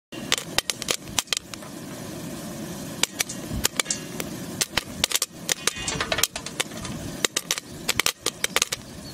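Popcorn kernels popping in a hot metal pan: sharp, irregular pops, a few each second, over a steady low hiss.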